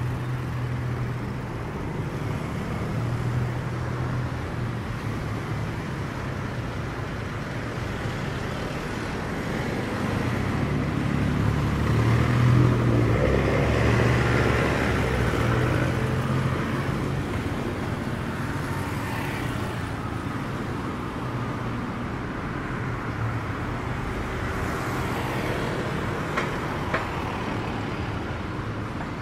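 Street traffic going by, steady engine hum and road noise, with one vehicle passing close and loudest about halfway through. Two short clicks near the end.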